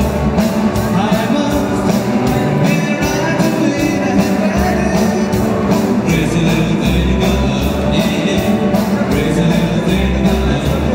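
Live rock band playing through a PA: electric guitars, bass guitar and drum kit with a steady beat.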